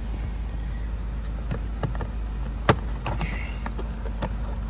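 Scattered sharp clicks and knocks of plastic parts being jiggled and worked loose by hand, with one louder knock about halfway through, over a steady low hum.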